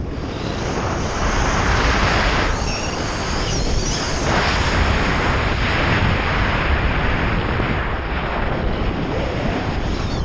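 Steady, loud wind rushing over a skydiver's camera microphone during descent under an open parachute canopy.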